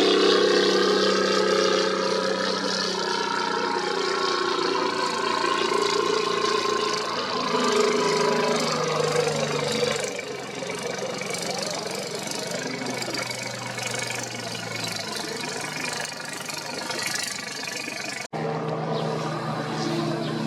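Engines of long, narrow racing boats running hard together, several engine notes layered, their pitch slowly falling as the boats pass. The sound cuts out for an instant near the end.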